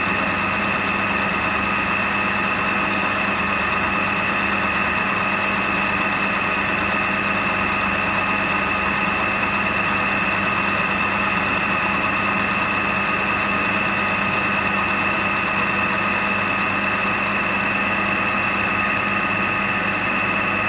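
Milling machine running steadily, its cutter milling a pair of small hinge blanks clamped together in the vise.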